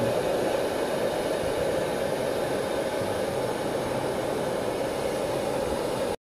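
Steady rushing roar of a small firing kiln, cutting off abruptly near the end.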